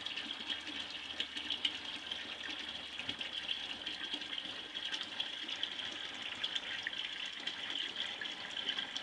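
Steady stream of very hot water running from a boiler's spigot through a PVC elbow into a plastic 5-gallon bucket, filling it.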